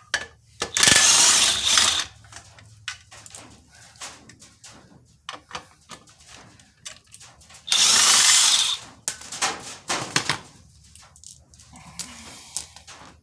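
A power tool runs in two bursts of about a second each, spinning out the half-inch bolts that hold the clutch pressure plate to the flywheel. Short clicks and knocks of tool and bolts come in between.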